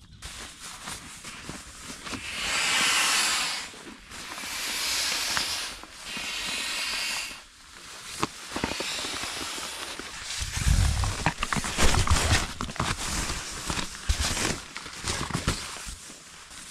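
Three rushes of hissing air, each about a second and a half long, with short gaps between. After them comes a stretch of rustling with low knocks and clicks, like gear being handled.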